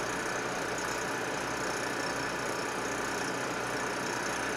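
Predator 4375 portable gasoline generator running at a steady speed, loaded by the J2 Ice Ripper that it powers.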